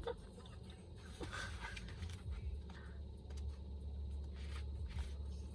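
Faint paper rustling and light taps from the pages of a journal being turned and handled, over a low steady hum.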